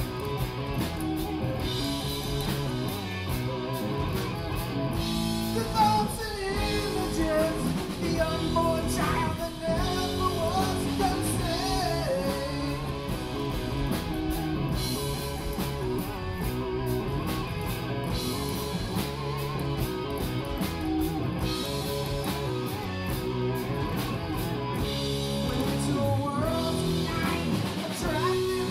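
Live rock band playing: electric guitar, bass, keyboards and drum kit, with a singer's voice coming in for stretches, most clearly about a third of the way in and again near the end.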